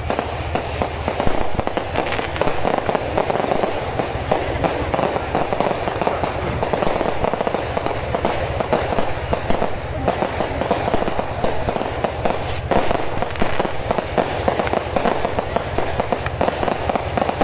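Fireworks going off in a dense, steady crackle of many small pops, with no single big bang standing out.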